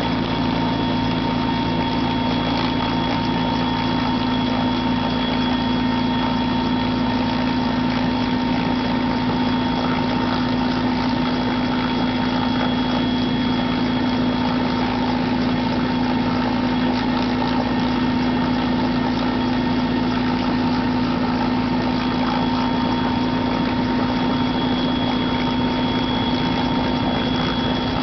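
Helicopter running steadily, a constant engine drone with a steady high whine over it.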